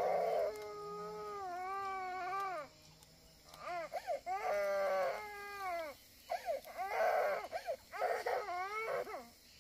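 A small child crying in long, wavering cries that rise and fall, with short breaks between them and a longer pause about three seconds in.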